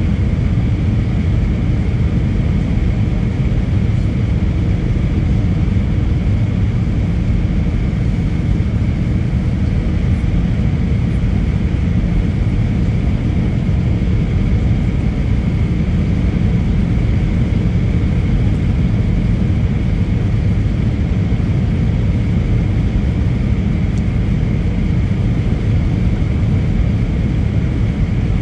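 Steady cabin noise inside an easyJet Airbus A320 on approach: low rumble of the jet engines and airflow past the fuselage, with a faint high hum above it.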